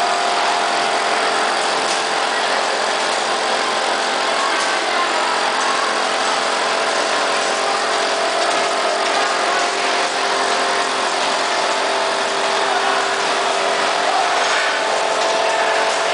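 Steady running noise of a belt weighing and sorting line for chicken meat: conveyor belts and drives running with an even hum and a couple of held tones, with faint clicks now and then.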